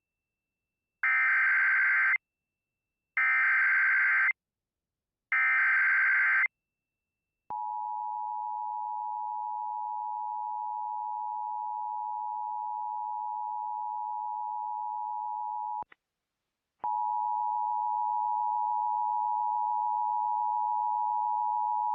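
An EAS encoder sends three bursts of SAME header data, each a buzzing digital screech about a second long, for the start of an alert. The two-tone EAS attention signal follows and holds steady for about eight seconds. After a brief break a second steady tone of about the same pitch starts and carries on.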